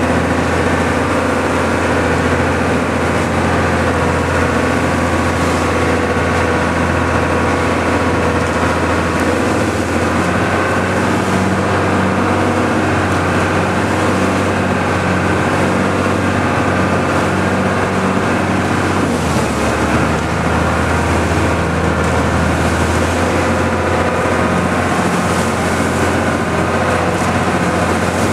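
Outrigger boat's (bangka's) engine running steadily under way, with wind and water spray over it. The engine's low hum drops slightly in pitch about two-thirds of the way through.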